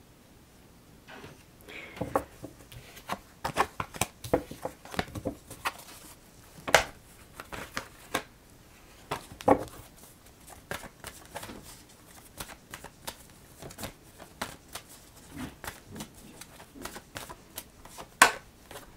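Deck of oracle cards being shuffled and handled: a long run of irregular card snaps and clicks that starts about a second in and continues throughout, with the sharpest snap near the end.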